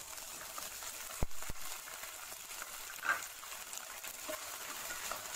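Sliced onions and ginger-garlic paste sizzling in hot oil in a nonstick pot while being stirred with a wooden spatula, a steady hiss. Two sharp knocks come a little over a second in.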